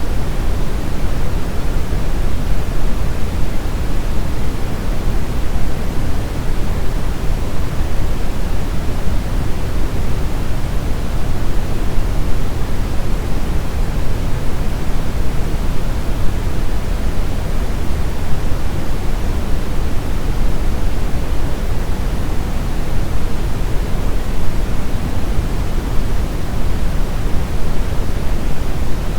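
Brown noise: a steady, even rumbling hiss, strongest in the bass and falling away toward the treble, with no changes or events.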